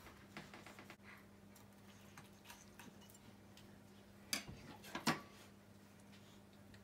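Faint ticks and clicks of a kitchen knife and hands working a filefish carcass while its liver is cut out, with two louder short sounds about four and a half and five seconds in, over a low steady hum.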